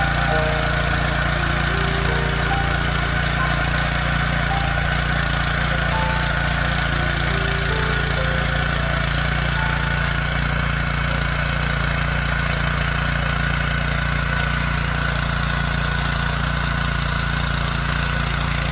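Honda GX160 single-cylinder four-stroke petrol engine of a Tasco BK 55H mini tiller, running steadily at an even speed.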